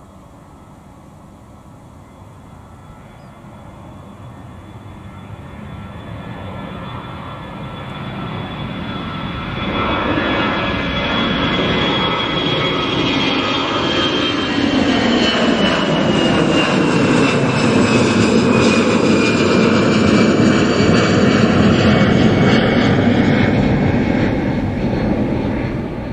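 Airbus A320-216's twin CFM56 jet engines at takeoff thrust, growing steadily louder as the jet lifts off and climbs past overhead. A high engine whine slides down in pitch as it goes by.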